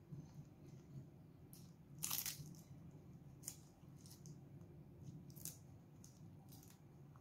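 Crisp crunching and chewing of raw leafy greens close to the mic: a handful of separate crunches, the loudest about two seconds in, over a faint steady hum.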